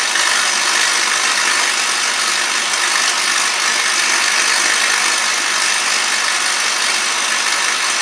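A vacuum cleaner running steadily, drawing the plasma away from the spark gap of a microwave-oven-transformer-powered high-voltage circuit, mixed with the firing spark gap's continuous hiss. The noise is even, with no breaks or separate cracks.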